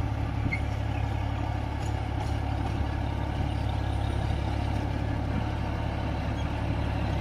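John Deere 5204 tractor's diesel engine running steadily under load as it drives a rotavator through the soil.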